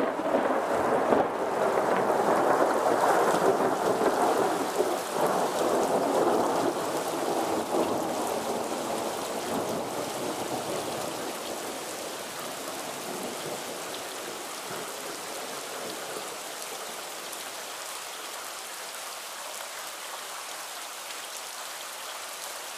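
Thunder rumbling with a few sharp cracks near the start, loudest for about eight seconds, then rolling away over several seconds and leaving steady rainfall.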